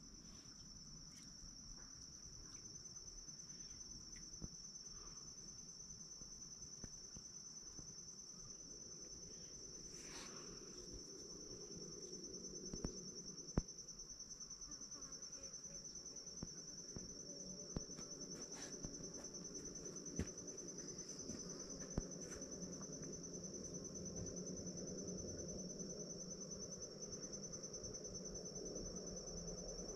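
An insect trilling steadily on one high pitch, without a break, with a few faint clicks over it.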